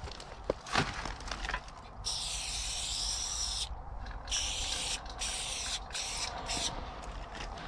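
Aerosol spray paint can spraying onto a wall: one long hiss about two seconds in, then a run of shorter hisses with brief gaps.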